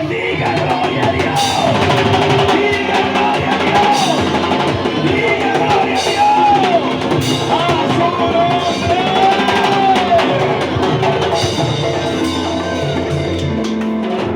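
Live worship music with a drum kit playing steadily, backed by sustained instrument tones and voices singing or calling out over it.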